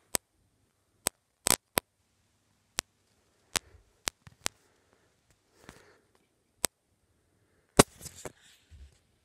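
About ten sharp, loud clicks at irregular intervals, with brief soft rustling about halfway through and again near the end.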